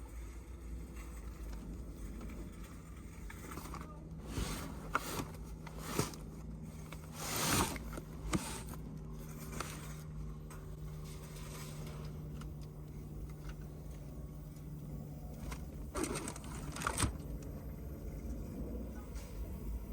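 A few scattered knocks and scrapes over a low steady hum, with a longer swelling rush of noise about seven and a half seconds in.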